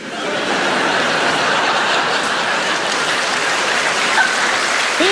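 Studio audience laughing and applauding in response to a punchline, swelling up within the first half-second and then holding steady.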